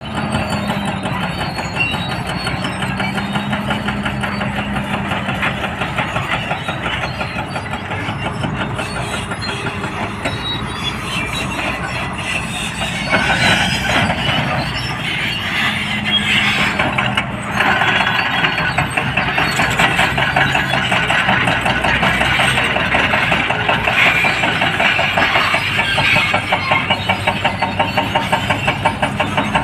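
Heavy diesel earthmoving machines, an excavator and a bulldozer, working in rock. Their engines run steadily under load with a fast, even rhythmic clatter throughout, louder from about halfway through.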